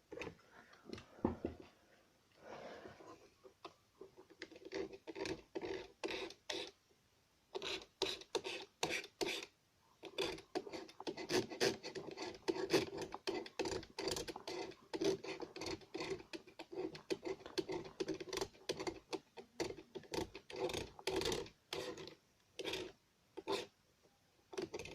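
Quick, repeated scratchy rubbing strokes on the plastic cover of an intercom control unit, a few per second with short pauses, as its burn stains are worked over by hand.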